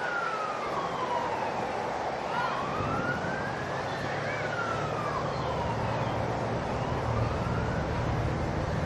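A siren wailing in slow rises and falls, growing fainter in the second half, with a low rumble coming in about three seconds in.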